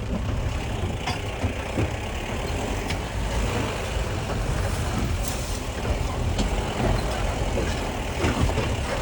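Mahindra off-road vehicle driving over rough ground: a steady low engine and road rumble, with a few scattered knocks and rattles.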